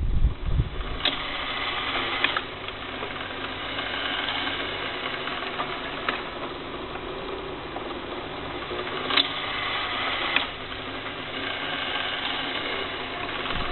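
Screw-driven working model of an injection mold moving its core slide back and forth under a small electric drive. It runs with a mechanical whine in several spells of one to a few seconds, and sharp clicks mark where the motion starts and stops.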